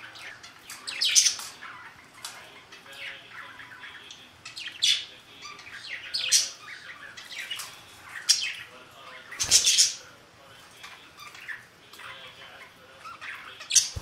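Budgerigars chirping and chattering: a busy string of short, high chirps with louder calls every second or two. A dull knock comes about two-thirds of the way through.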